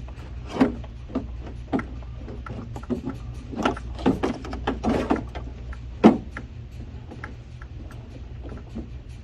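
Scattered clicks, taps and knocks of plastic and metal parts being handled and worked loose inside a car door, with a sharper knock about six seconds in. A steady low hum runs underneath.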